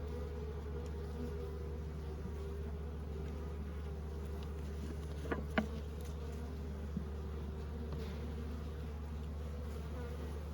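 Honeybees buzzing steadily in an opened hive, with two sharp knocks a little past halfway and a fainter one soon after.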